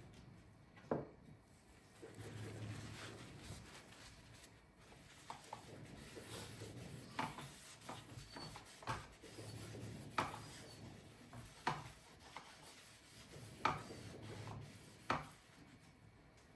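Quiet rubbing and handling noises with about half a dozen sharp clicks or taps spread a second or two apart.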